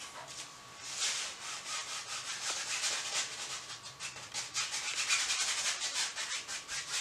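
A 1-inch paintbrush scrubbing oil paint across a canvas in quick back-and-forth criss-cross strokes, a rapid bristly rubbing that grows louder about a second in.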